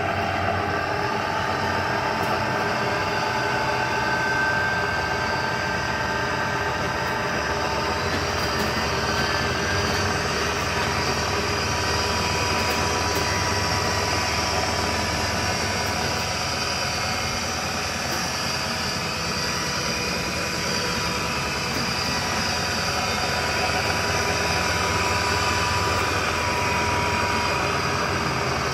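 Powermatic 1200 drill press running with no load, its 230 V three-phase motor and spindle drive giving a steady hum with a few faint high whining tones.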